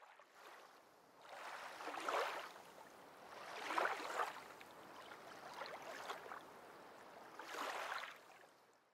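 Faint water sloshing in four soft swells, each about a second long and roughly two seconds apart.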